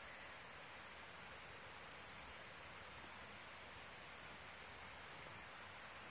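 Steady, high-pitched insect chorus that shifts slightly higher and grows a little louder about two seconds in.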